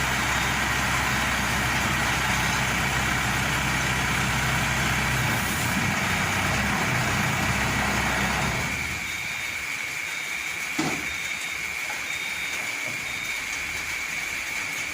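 Engine of a Maxxi Bimo Evo 102 L rice combine harvester idling steadily, then cutting off a little past halfway. A steady high whine remains afterwards, with a few short beeps and a single click.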